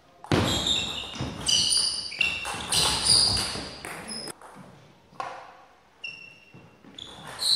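Table tennis rally: the ball ticking off rackets and bouncing on the table, with short high squeaking tones, for about four seconds. A lull follows with a few single bounces, and play picks up again near the end.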